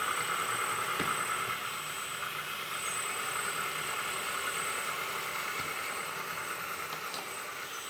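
Simulated diesel engine sound from the onboard sound module of a 1/14-scale RC hydraulic bulldozer, running steadily at a low, even pulse and easing off slightly toward the end.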